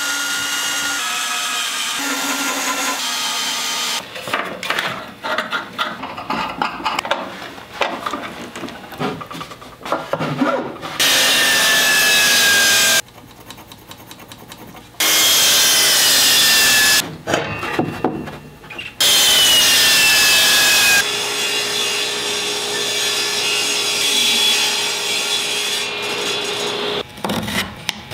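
Woodworking tool sounds: wood being handled and worked by hand, then three loud power-saw runs of about two seconds each whose whine drops in pitch as the blade loads, then a steadier machine run with a low hum near the end.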